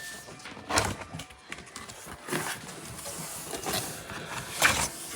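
Cardboard box and packing being handled as an espresso machine is unboxed: about four short scraping, rustling noises.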